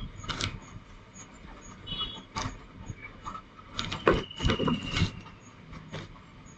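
Handling noise at a craft table: scattered taps and knocks as small tools are picked up and set down, with a denser, louder cluster of knocks about four to five seconds in.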